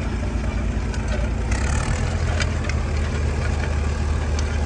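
A tractor engine running steadily, pulling an early-1920s John Deere Hoover potato planter, with a few scattered sharp clicks from the planter's mechanism as it plants potatoes.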